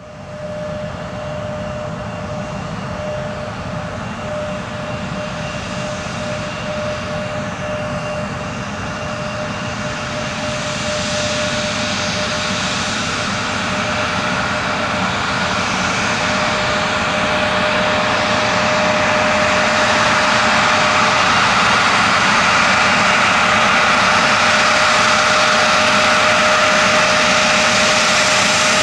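Jet airliner engines running with a steady whine, growing gradually louder; the aircraft is a Fuji Dream Airlines Embraer regional jet with turbofan engines, before its departure.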